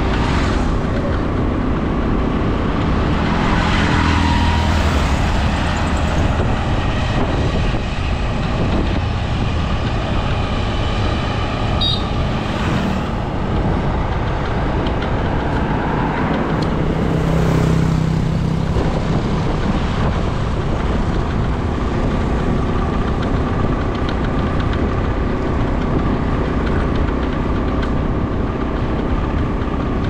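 Road traffic noise heard while travelling along a paved road: a steady engine hum with rushing wind and tyre noise, and other vehicles sweeping past several times, including a car going by about sixteen seconds in.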